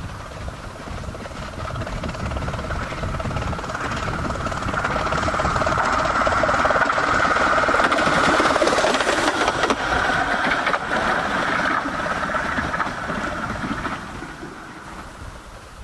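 Miniature-gauge tender steam locomotive approaching and passing close by, its exhaust beats and running noise swelling to a peak about eight seconds in, then fading as it moves away.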